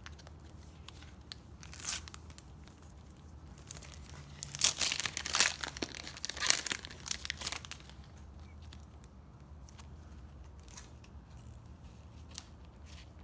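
A foil trading-card pack torn open and crinkled: a dense run of crackling rips beginning about four seconds in and lasting some three seconds.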